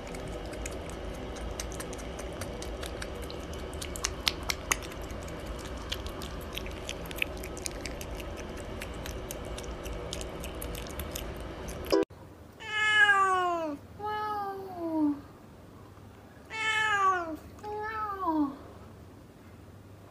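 A domestic cat meowing four times in two pairs, each meow falling in pitch. Before it comes a steady low hum with scattered small clicks, which stops abruptly.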